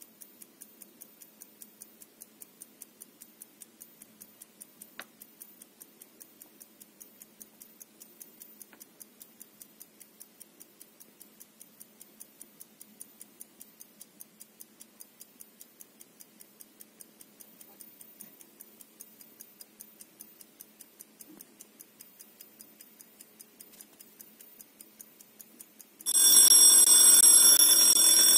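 Kienzle 1968 mechanical travel alarm clock ticking fast and evenly, about five ticks a second. Near the end its alarm goes off suddenly, a loud continuous ringing much louder than the ticking.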